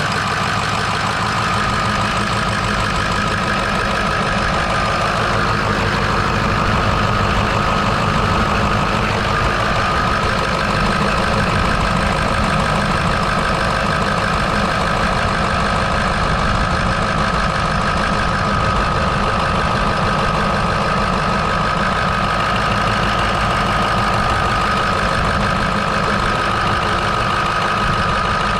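Ford 6.0 Power Stroke V8 turbo diesel idling steadily, its accessory belt drive running on a new belt, tensioner and two new idler pulleys. A steady high-pitched tone runs over the engine sound.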